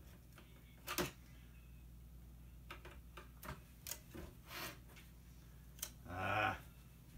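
Screwdriver prying at the plastic frame of a flat-panel TV screen: scattered sharp clicks and taps of metal on plastic, and a louder half-second sound about six seconds in.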